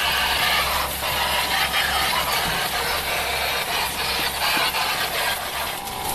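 Water jet from an electric pressure-washer-type cleaning machine hissing steadily as it rinses an air conditioner's indoor unit, with the machine's motor humming low underneath. Both stop near the end.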